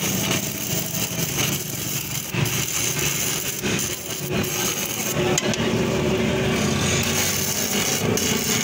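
Electric arc (stick) welding on a motorcycle's kick-start lever: the electrode arc crackles steadily.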